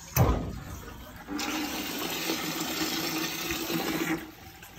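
A knock, then about a second in a rush of water forced out through an opened purge valve on a hydronic heating zone, steady for about three seconds before it stops: the zone is being purged of trapped air.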